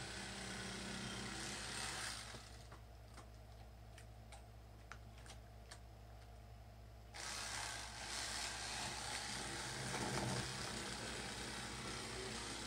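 Corded electric fillet knife running as it cuts catfish fillets. It stops about two seconds in, leaving a few light clicks, then starts again abruptly about seven seconds in and runs on steadily.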